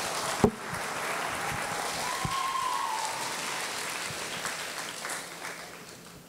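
Audience applauding, the clapping dying away near the end. A single sharp thump comes about half a second in.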